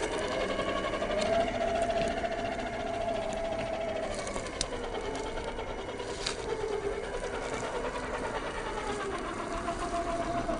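A 1/10 scale RC Unimog truck's electric motor and gears whine, the pitch wavering and dipping as the throttle changes. A few sharp clicks come through here and there.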